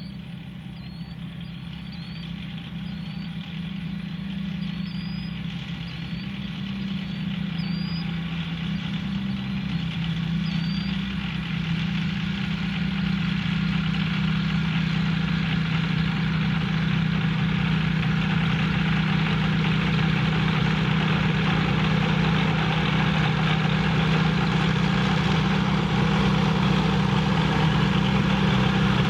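Cessna 421's two geared, turbocharged piston engines running at low taxi power with both propellers turning, a steady low drone that grows steadily louder as the twin taxis toward the microphone.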